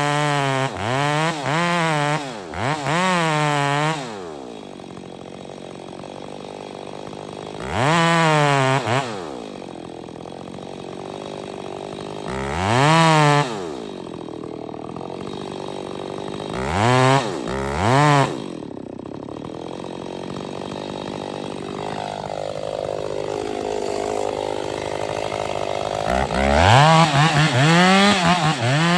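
Two-stroke chainsaw idling and being revved up briefly, again and again: about eight short rises in engine pitch that fall back to idle, with a longer run of revs near the end.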